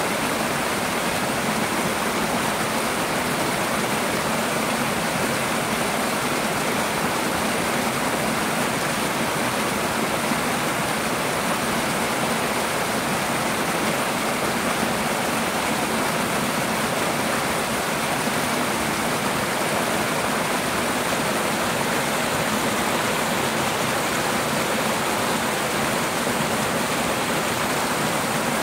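Two small side-by-side waterfalls splashing over rock into a shallow stream pool: a steady, even rush of falling water.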